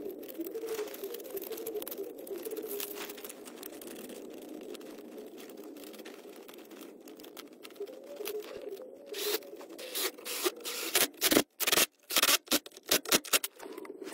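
Scraping and rubbing as a shielded rubber coupling with stainless steel clamp bands is worked by hand onto the joint between old cast iron pipe and PVC drain pipe. Near the end comes a quick run of sharp clicks and scrapes.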